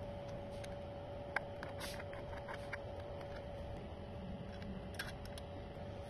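Small metallic clicks and taps as a key blank is handled and seated in the clamp of a 2M2 Tank 2 Pro key cutting machine, with one sharper click about a second and a half in, over a faint steady hum.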